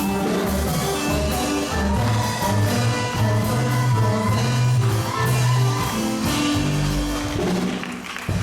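Music with a strong bass line, held notes and percussion strokes, dying away shortly before the end.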